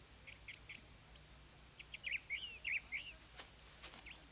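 Faint bird chirps: two short runs of quick high tweets, about a second apart.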